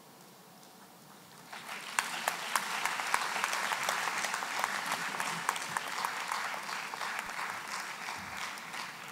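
Audience applause that starts about a second and a half in, stays thick with many claps for several seconds, then begins to die away near the end.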